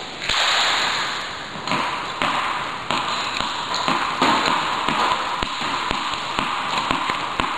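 Tennis balls being struck with a racket and bouncing on an indoor court: a series of sharp taps at irregular spacing, roughly once a second, over a steady hiss.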